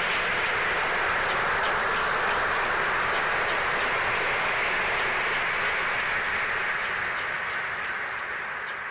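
A steady wash of hiss-like noise in an electronic track, beginning abruptly and slowly fading out near the end.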